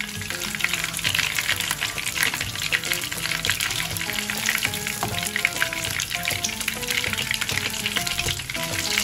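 Hot oil sizzling and crackling with rapid pops as bread curry puffs with tuna filling shallow-fry in a pan.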